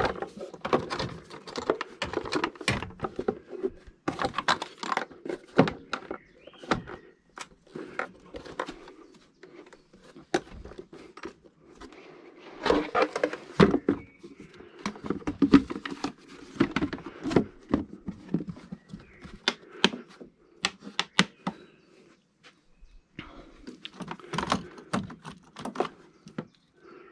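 Irregular clicks and knocks of hard plastic air-intake parts being handled and pushed into place in a Toyota GR Yaris engine bay, with rustling between them.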